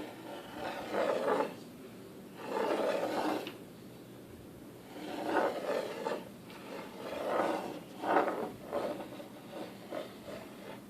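Pair of oval rattle magnets ("snake eggs") snapping together and rattling against each other in a series of short, raspy rattles, about six strong ones each under a second, with fainter ones near the end.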